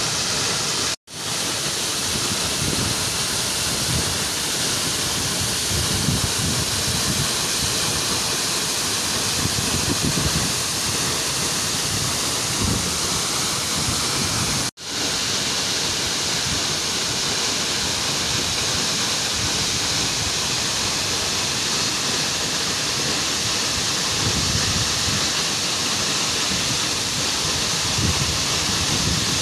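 A 30-metre waterfall plunging into its pool: a steady rush of falling water. The sound cuts out for a split second twice, about a second in and about halfway through.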